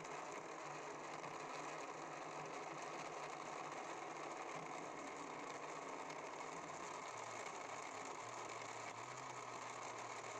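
Electric blender running steadily, its jar blending milk, chopped fruit and ice cubes into a milkshake. The motor note drops slightly about seven seconds in.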